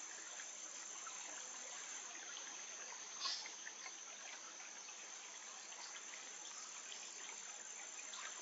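Faint trickle of a shallow stony stream under a steady high-pitched insect drone, with one brief tap about three seconds in.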